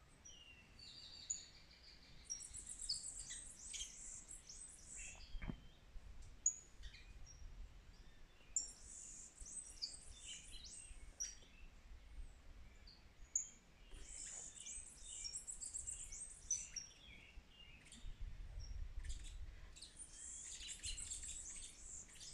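Several birds chirping and singing outdoors, many short high calls and trills overlapping in clusters; faint overall.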